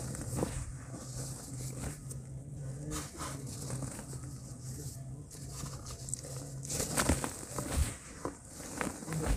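Lumps of dry cement crunching and crumbling in bare hands, loose powder pattering into a plastic tub, with louder crunches near the end.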